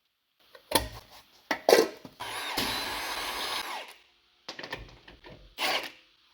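A handheld power tool runs for about a second and a half in the middle, with short clanks and clatter of tools and metal parts before and after it.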